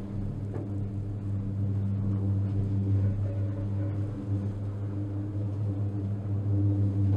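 Gondola lift running, heard from inside a descending cabin: a steady low mechanical hum with a few higher tones over it.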